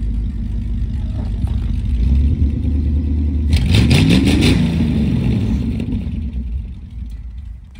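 An old pickup truck's engine running, revving up and back down about four seconds in, with clattering at the same time. The engine sound fades away near the end.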